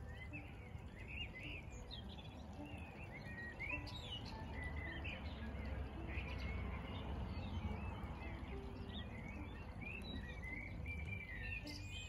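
Small birds chirping in many quick, short calls throughout, over a low steady rumble that swells in the middle.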